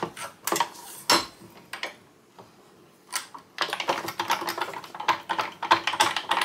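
Manual stack paper cutter with its clamp being tightened down on a paper stack: scattered clicks and knocks, then a dense run of clicking and rattling through the second half.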